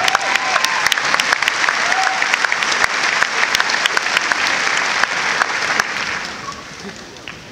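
Large crowd applauding, dense clapping that dies away about six to seven seconds in.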